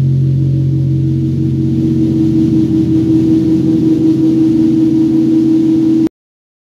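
Electric bass guitar letting a low chord ring out through its amplifier as a sustained drone, a higher note swelling about two seconds in. The sound cuts off suddenly about six seconds in.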